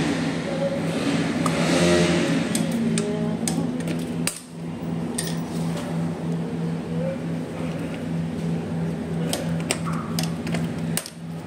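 A steady low mechanical hum, with muffled voices in the first few seconds and a few sharp clicks near the end.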